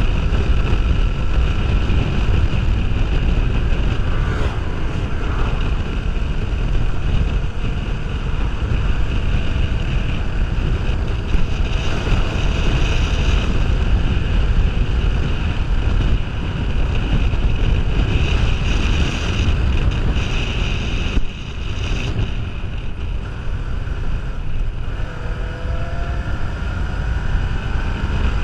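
Wind buffeting the microphone of a helmet-mounted camera, over the Kawasaki Ninja 500R's parallel-twin engine running at road speed. The wind noise dips briefly about two-thirds of the way through. Near the end the engine note rises as the bike accelerates.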